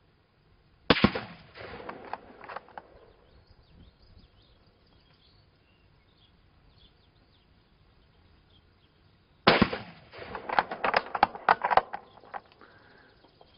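Two rifle shots from a bolt-action precision rifle, about eight and a half seconds apart. Each shot is followed by a quick run of metallic clicks as the bolt is worked to eject the spent case and chamber the next round.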